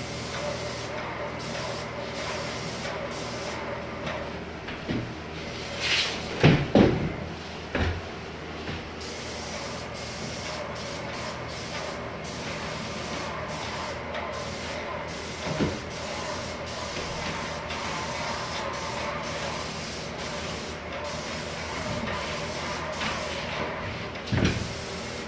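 Airless paint sprayer spraying pre-catalysed lacquer: a steady hiss with an even mechanical hum under it. A few loud bumps about six to eight seconds in, and again near the end.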